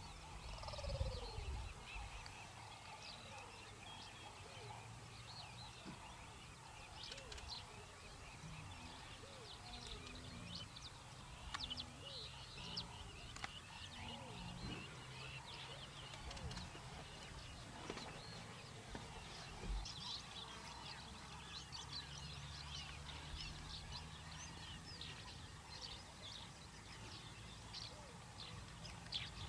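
Many birds chirping in short, high calls throughout, over a faint steady low hum.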